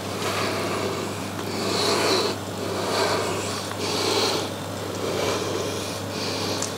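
Cooked pasta shells being shaken and scraped out of a stainless steel pan into a baking tray, in rhythmic swishing scrapes about once a second, over a steady low hum.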